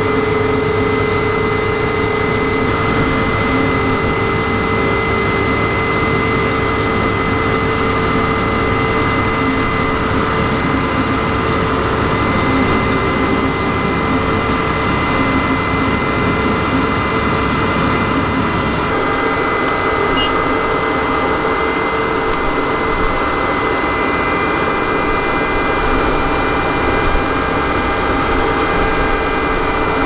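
Tracked asphalt paver's diesel engine running steadily, with steady high tones over it. The low rumble eases about two-thirds of the way through.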